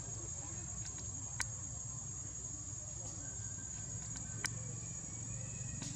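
Outdoor background of a steady, high insect drone over a low, even rumble, with two sharp clicks about a second and a half in and again near four and a half seconds.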